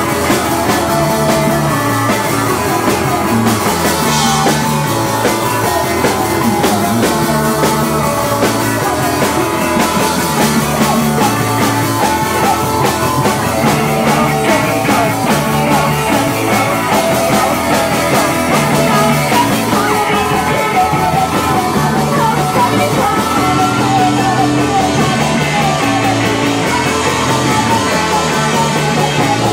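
A punk rock band playing live and loud: electric guitar and drum kit, with a woman singing into a microphone.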